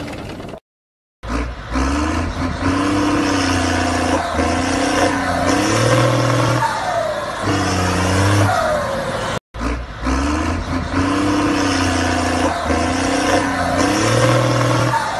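Dubbed-in motor-vehicle engine sound effect: engine running with pitch glides like revving. The same clip of about eight seconds loops, with a brief dropout near the start.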